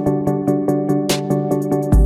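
Background electronic music with a quick, even ticking beat over held synth chords, and a cymbal-like hit about a second in.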